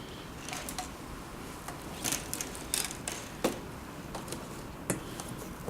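Scattered light clicks and taps of tools and small metal parts being handled while a heat press machine's heat detector is being worked on, a few separate knocks over a low steady background.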